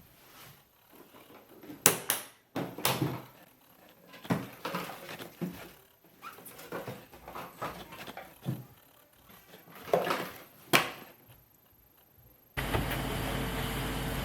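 Scattered clicks and knocks of the vacuum cleaner being handled, then near the end the Miele Blizzard CX1 bagless cylinder vacuum's motor switches on abruptly and runs steadily.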